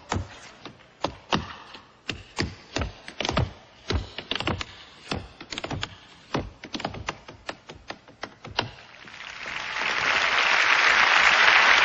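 A run of sharp taps and knocks in quick, uneven bursts, then an audience applauding, swelling from about nine seconds in.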